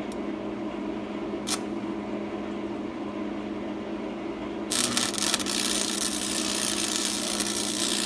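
Lincoln 'tombstone' AC arc welder humming steadily; a little over halfway through, the arc is struck and the stick electrode crackles and sizzles without a break as it welds steel pipe.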